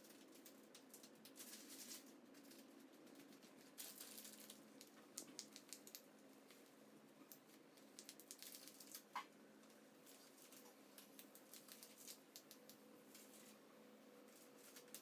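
Faint, irregular crackling and rustling of painter's tape being peeled off a baseboard and wall.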